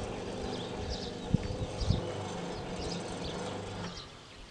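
Level-crossing barrier drive humming steadily as the booms rise, stopping about four seconds in when they reach the upright position. Two short knocks come in the middle, and birds chirp throughout.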